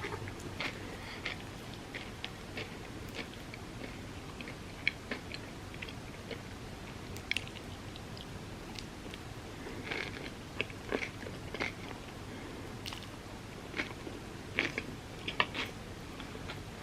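A person chewing and biting into Dubai chocolate crepes, close-miked: irregular crisp, crunchy clicks and smacks of mouth sounds, with a flurry of louder crunches about ten seconds in and again near the end.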